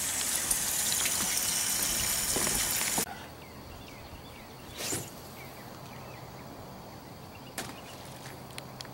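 A steady hiss that cuts off suddenly about three seconds in, giving way to a quieter outdoor background. About five seconds in there is a brief whoosh as a heavy fishing rod is cast.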